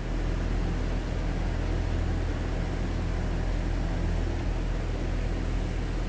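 Steady low hum with a faint hiss, unchanging throughout.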